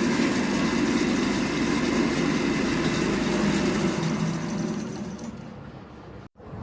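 A steady mechanical whirring, like a small motor running, that starts abruptly and fades away over the last two seconds.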